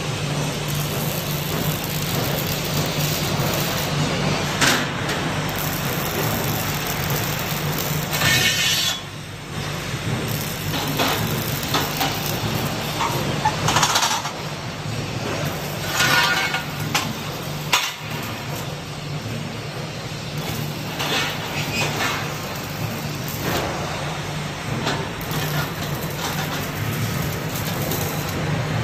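Welding workshop machinery running with a steady low hum, broken by intermittent clanks and scrapes of steel parts being handled.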